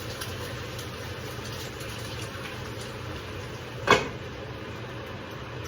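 A steady low hum and hiss of kitchen background noise, with one sharp knock about four seconds in, like a dish or utensil being set down.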